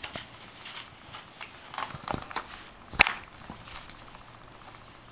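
Handling noise and soft steps on carpet as the phone filming is carried around, with scattered light knocks and rustles and one sharp click about three seconds in, the loudest sound.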